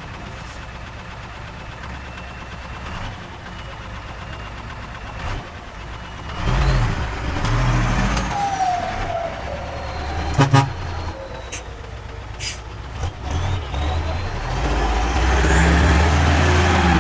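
Heavy diesel earthmoving machine running steadily, then revving up and down about six seconds in. Several sharp metallic clanks come around the middle, along with short squeals.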